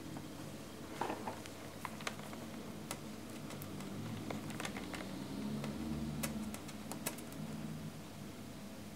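Light metallic clicks and taps, a dozen or so scattered over several seconds, as multimeter probe tips are set down on a zinc washer and a copper coin; a low handling rumble swells under them in the middle.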